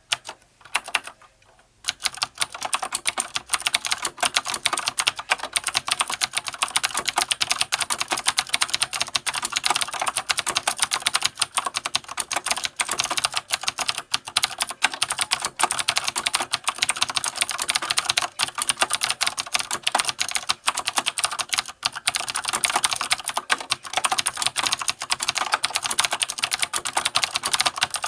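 Dih Shin DS-2001 mechanical keyboard with stock vintage Cherry MX Blue clicky switches on a steel plate being typed on: a few separate keystrokes at first, then from about two seconds in, continuous fast typing with many clicks a second.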